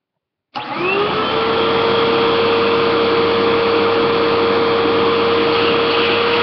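Vacuum cleaner for pet cleanup switched on about half a second in, its motor whine rising quickly to full speed and then running steadily.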